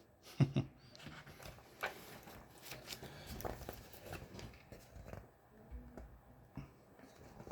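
Faint rustling and small taps of a picture book being handled, with a sharper click about half a second in.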